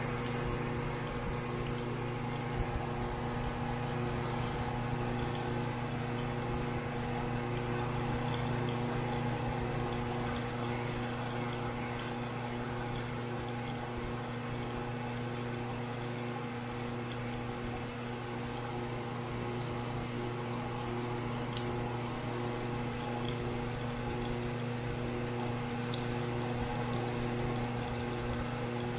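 Crankshaft grinder running steadily, grinding a journal on a BSA A65 crankshaft to final size: a steady motor hum with a hiss over it.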